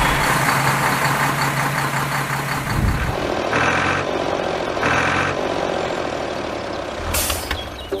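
Truck engine running steadily, then two short beeps of a horn or reversing alarm a little over a second apart, and a brief air-brake-like hiss near the end.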